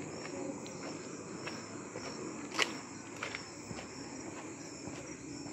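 Crickets and other night insects chirring steadily at a high pitch, over footsteps, with one sharp click about two and a half seconds in.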